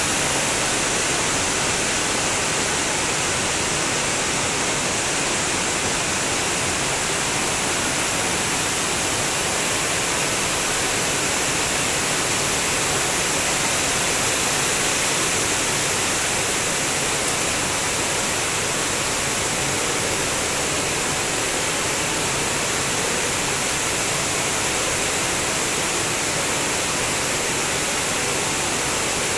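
Heavy rain pouring down, a constant, even hiss with no breaks.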